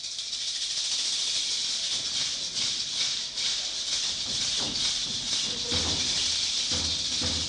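Shaker or rattle percussion swelling in with a quick rhythmic hiss, joined by low drum beats and a held note in the second half as a piece of music gets under way.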